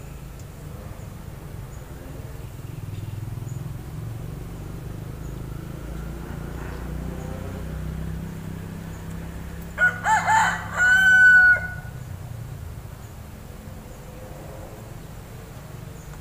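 A rooster crowing once about ten seconds in: a few short wavering notes, then one held note, lasting about two seconds.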